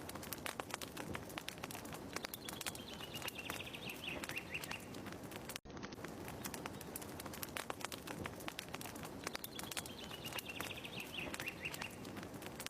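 Looped fireplace ambience: a fire crackling in many small irregular snaps, with a short descending bird trill that comes once in each loop. The loop restarts with a brief dropout about halfway through, so the same trill is heard twice.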